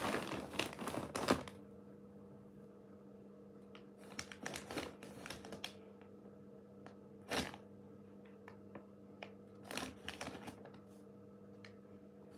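Clear plastic bag crinkling as it is handled: a dense stretch of rustling for about the first second and a half, then scattered crackles and rustles, with a louder one about halfway through.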